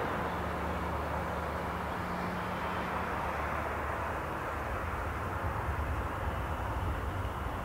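Sukhoi Su-35's twin jet engines running as the fighter taxis, a steady jet noise with a low hum beneath it. A low tone in the hum fades out about three seconds in.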